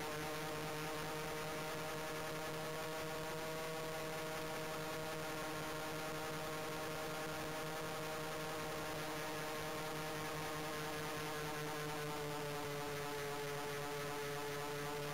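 Steady hum of a radio-controlled model Heinkel He 219's motors and propellers in flight, picked up by a camera mounted on the airframe; the pitch sags slightly lower in the second half.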